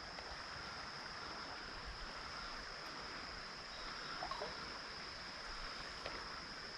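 Steady, quiet rush of flowing creek water, with a constant high-pitched hum above it.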